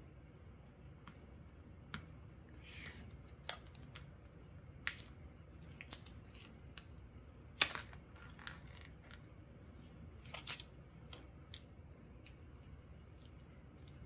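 Small paper envelope being handled and opened by hand: scattered light paper rustles and crisp clicks, the loudest a sharp click about seven and a half seconds in.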